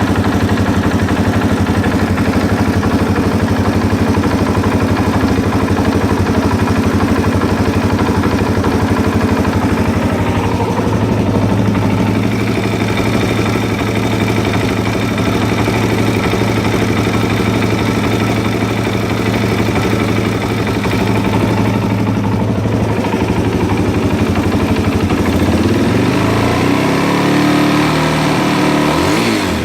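2001 Suzuki DRZ400E single-cylinder four-stroke engine idling with a rhythmic knock, which the owner links to its Wiseco aftermarket piston; the revs rise briefly near the end.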